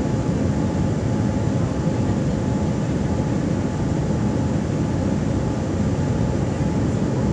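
Steady cabin noise inside a Boeing 787-9 airliner on descent: jet engine and airflow noise, heaviest in the low range, with a faint steady hum above it.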